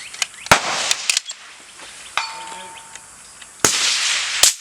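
Two suppressed centerfire rifle shots about three seconds apart, each a sharp crack followed by a hissing tail. Between them come mechanical clicks and a short metallic ring.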